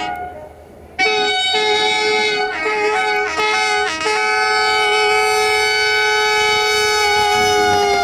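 Horn of CFR locomotive 65-1300-6 sounding a horn show: a brief blast, then from about a second in several short notes of changing pitch, then one long held multi-tone chord.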